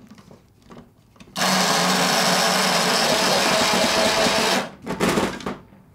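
Electric blade coffee grinder grinding toasted sesame seeds with salt: the motor starts about a second and a half in, runs steadily with a low hum for about three seconds, then cuts off, followed by a few short bursts.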